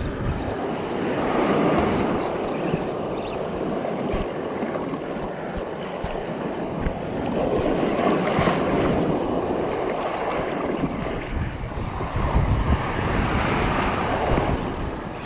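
Surf washing in around the wader, a rushing noise that swells and eases every few seconds, with wind buffeting the microphone.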